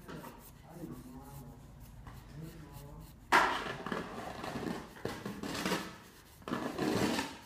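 Marker tip scratching across paper in quick colouring strokes: a loud burst of scribbling starting about three seconds in and lasting a couple of seconds, then a shorter one near the end.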